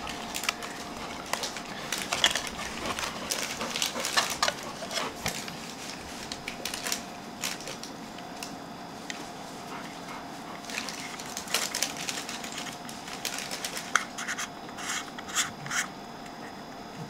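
Handling noise from a small camera lens: scratches, light clicks and rubbing as its front cap comes off and a 49 mm filter is screwed onto the front thread. The clicks are sharper and more frequent near the end, over a faint steady hum.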